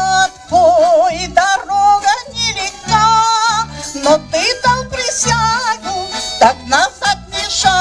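A woman singing a folk song with a wavering vibrato into a microphone, accompanied by an ensemble of plucked folk string instruments playing a steady rhythmic accompaniment.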